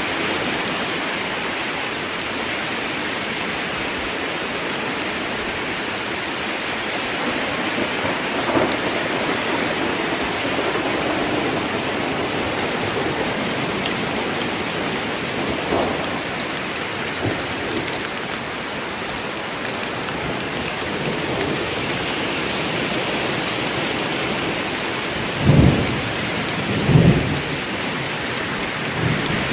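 Steady heavy rain falling in a forest, an even hiss, with two short low booms near the end.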